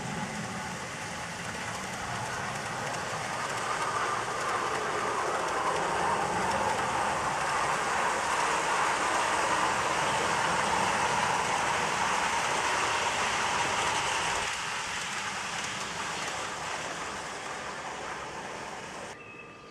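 Large-scale garden model train, electric locomotives hauling freight wagons, running past on the track: a steady rolling rumble of wheels and motors. It swells as the train passes, fades away, and cuts off suddenly near the end.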